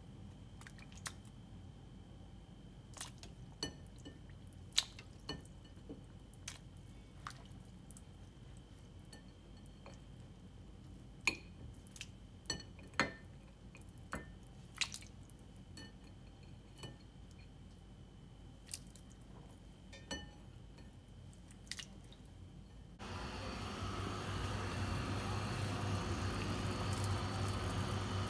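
Water dripping and small plops and clicks, scattered and irregular, as ingredients are put into a pot of water on the stove. About 23 seconds in this gives way to a louder steady rushing bubble with a low hum: the soup pot at a rolling boil.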